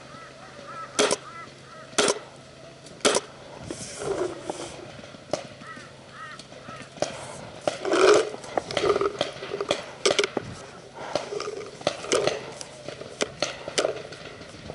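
Paintball markers firing: sharp cracks about once a second at first, then faster and more scattered, with people shouting between the shots.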